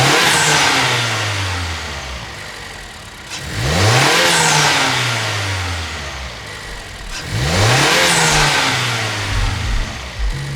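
Mazda CX-50's 2.5-litre turbocharged four-cylinder, breathing through an aFe Takeda cold air intake, free-revved three times. Each rev climbs sharply and falls back over about three seconds, with a high whistle falling away after each.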